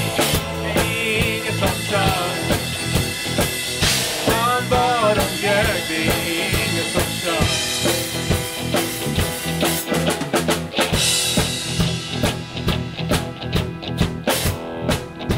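Live rock band playing an instrumental stretch on electric guitar, electric bass and drum kit. Near the end the drums stand out, with snare and bass drum hits clearest.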